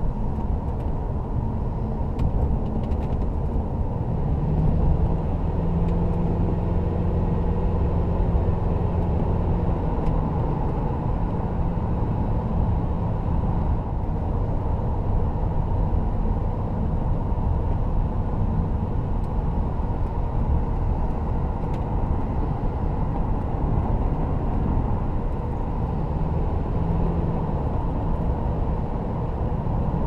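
2002 Ford Thunderbird's 3.9-litre V8 running at a steady cruise, heard from inside the closed cabin together with road and tyre noise. The engine's hum stands out more between about four and ten seconds in.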